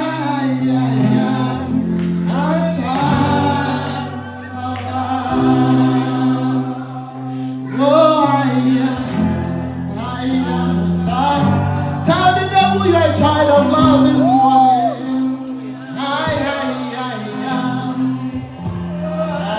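Gospel worship singing by several voices over sustained keyboard chords.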